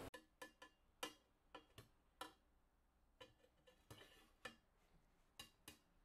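Metal slotted skimmer spoon clinking against a stainless steel pot while lifting out boiled potatoes: about a dozen light, irregular taps.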